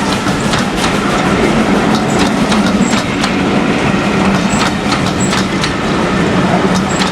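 Steam-hauled train passing close, its wheels clattering over the rail joints in a dense run of clicks over a steady low hum.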